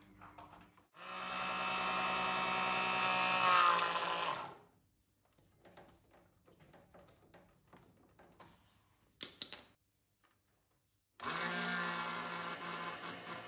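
Small 12-volt electric oil extractor pump running with a steady motor hum, drawing the old engine oil out of the lawn tractor's engine. It runs for about three seconds, its pitch sagging slightly just before it stops. After quiet handling and a couple of sharp clicks, it starts up again about two seconds before the end.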